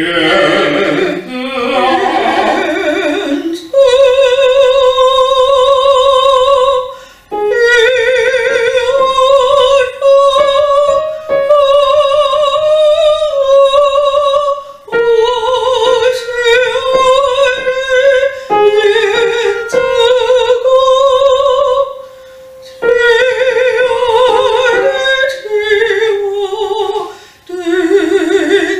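A woman voice student singing in a classical style with vibrato, held notes in phrases broken by short pauses for breath, trying for the higher vocal placement she has just been asked for. Piano accompaniment plays under her.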